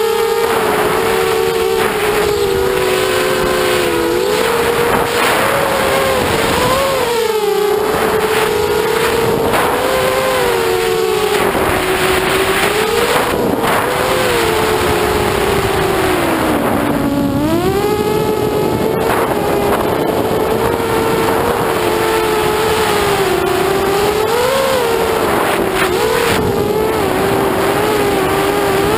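Motors and propellers of an FPV quadcopter whining, heard from its onboard camera, the pitch rising and falling continuously with the throttle as it flies. About halfway through the whine drops low, then climbs back up.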